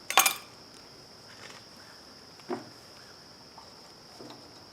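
Sharp clicks and a short clatter of small carburetor parts being handled and pried at, the loudest just after the start and a smaller click about two and a half seconds in, as the gummed-up float, stuck solid, is worked at. A steady high-pitched tone runs underneath.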